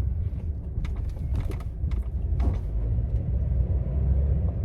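Car driving, heard from inside the cabin: a steady low engine and road rumble, with a few brief clicks and creaks.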